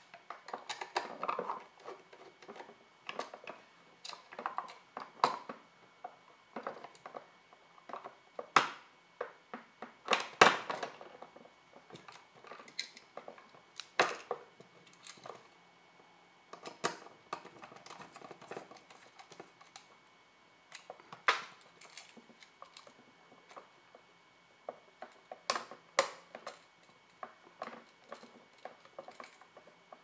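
Irregular small metallic clicks and clinks, with a few louder knocks, as a screwdriver works the terminal screws of a wall outlet and the outlet and its wires are handled.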